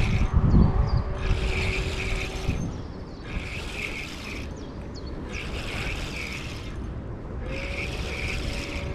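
Spinning reel being cranked in a slow retrieve: a whirring about once every second and a half as the handle turns. Wind rumbles on the microphone, strongest at the start.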